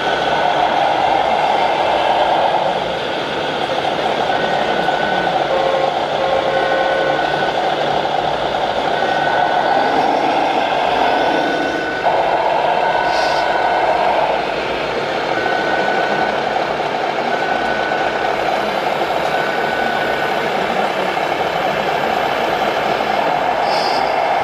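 Radio-controlled scale model trucks driving slowly past, their engine sound running steadily, with a short high beep repeating about every two seconds until near the end.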